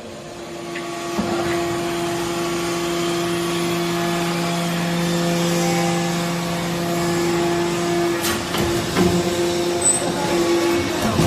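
Hydraulic high-density baler for copper shavings running: a steady machine hum that sets in about a second in. The lower part of the hum drops out about eight seconds in, and a few sharp metallic knocks follow near the end.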